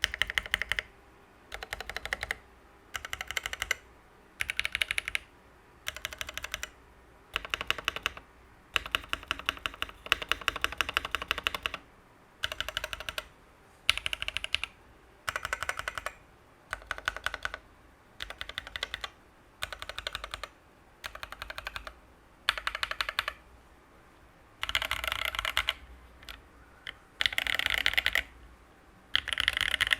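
Typing on a KMG TKL mechanical keyboard with SP Star Polaris Grey switches, an aluminium sandwich plate and Linworks keycaps: rapid clacky keystrokes in bursts of about a second or two with short pauses between, like words being typed.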